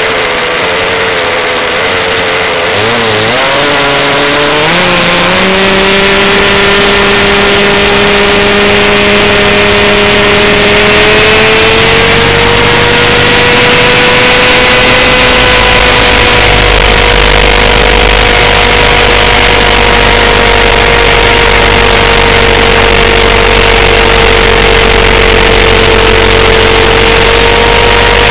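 Raptor 32 RC helicopter's nitro engine and rotor, picked up close by a camera mounted on the helicopter: a loud, steady pitched whine that wavers and climbs a few seconds in, rises again about twelve seconds in, then holds at the higher pitch.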